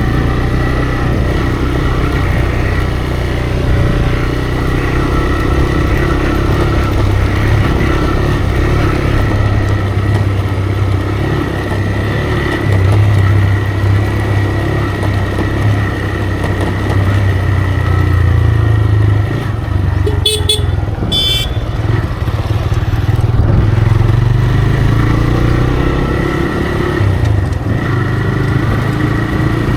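TVS Raider 125's single-cylinder engine running steadily through its stock exhaust while riding at a constant pace. A horn toots twice in quick succession about two-thirds of the way through.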